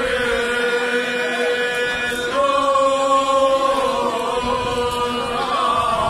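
Men's voices singing a Cretan rizitiko a cappella, in slow, long-held notes. The singing swells onto a new, louder note a little over two seconds in.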